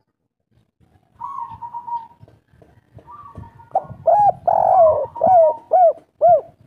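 Spotted dove of the local 'kuk 3' call type cooing. After a brief pause and a soft note, it gives a quick run of short, rounded coos in the second half.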